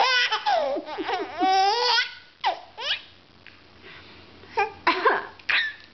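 A baby laughing, with high-pitched rising squeals for the first two seconds, then several short, sharp laughing bursts.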